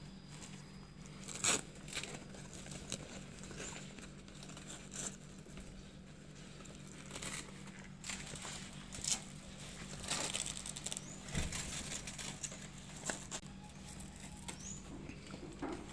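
Fabric canopy cloth rustling and flapping as it is tugged into place over a metal frame, with scattered sharp clicks and knocks at irregular moments.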